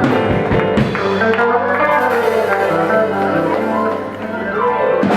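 Live rock band playing: electric guitar melody over sustained chords, with drum strokes in the first second and a loud hit right at the end.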